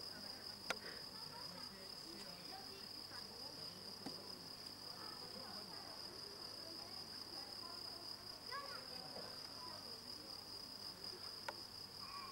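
Insects chirring in one steady, unbroken high-pitched drone, with a single sharp click about a second in.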